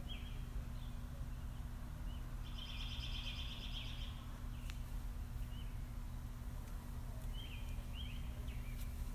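Small birds chirping in short high calls, with one rapid trill lasting about two seconds near the middle, over a steady low hum.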